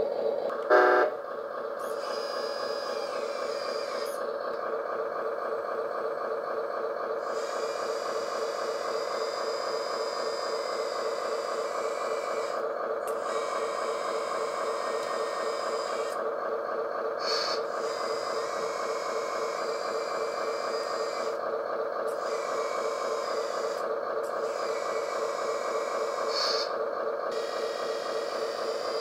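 Hydraulic pump of an RC model truck crane running with a steady whine, its sound shifting every few seconds as the valves work the crane arm and the small hydraulic grab.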